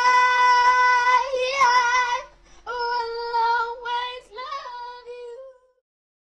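A man singing two long, high held notes, the second wavering a little in pitch and breaking off about six seconds in.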